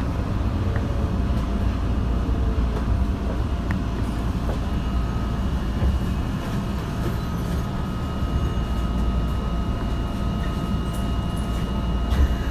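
Tokyo Metro 2000 series subway train running, with a steady low rumble of wheels on rail. A steady high whine joins about five seconds in and holds.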